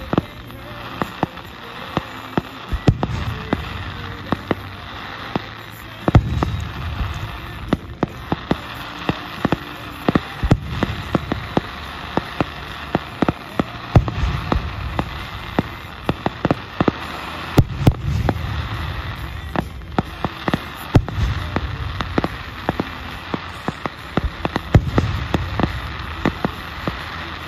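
Aerial fireworks display: a steady run of sharp cracks and crackling, with a deep boom from a bursting shell every three or four seconds.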